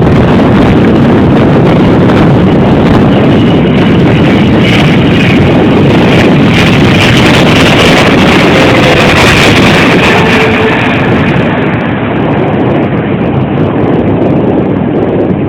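Boeing 777-300ER's GE90-115B turbofan engines at high thrust on departure, a loud, steady jet noise that eases somewhat about twelve seconds in.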